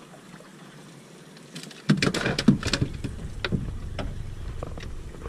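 A quiet hiss, then about two seconds in a sudden burst of knocks and clatter on a small fishing boat, after which a low rumbling noise carries on.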